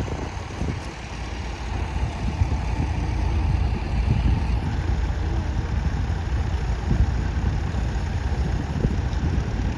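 Tractor engine running steadily, a low rumble.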